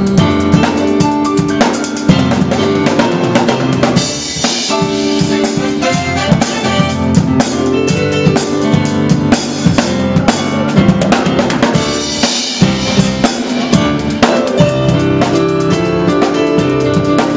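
Live gospel-style band playing: a drum kit keeps a busy groove of kick drum, snare and cymbals under held keyboard chords.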